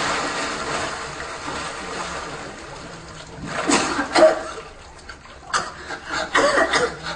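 Water splashing in a pool, dying away over the first few seconds. After that come several short vocal bursts, gasps and chuckles, in two clusters about four and six seconds in.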